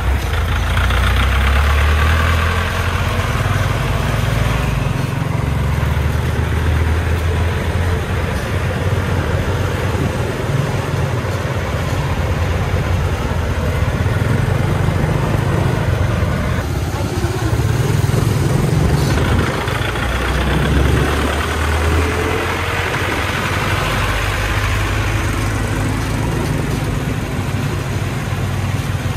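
Hoa Mai light dump truck's diesel engine, loaded with sand, running at low speed, heard from close behind. There is a steady low rumble that swells and eases every few seconds as it pulls along.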